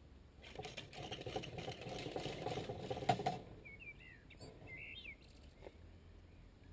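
Steel reinforcing bars rattling and clicking as the rebar cage is handled: a dense run of rapid clicks for about three seconds, ending in a sharper knock. A bird chirps a few times afterwards.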